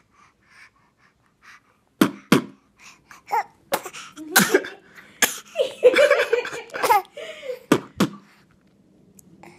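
A baby's attempt at beatboxing: a string of sharp, breathy mouth pops and spluttering bursts starting about two seconds in, mixed with squealy, laughing vocal sounds around the middle, dying away near the end.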